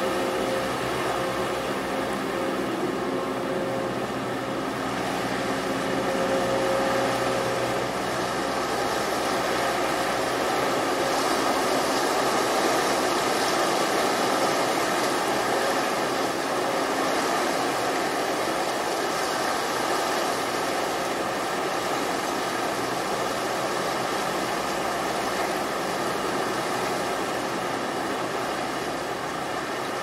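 Steady rush of ocean surf breaking on a sandy beach, slowly swelling and easing. A faint steady hum sits under it and fades out about eight seconds in.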